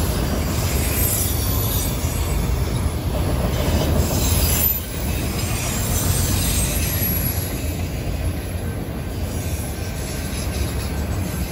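Empty CSX autorack freight cars rolling past at speed: steady noise of steel wheels on the rails.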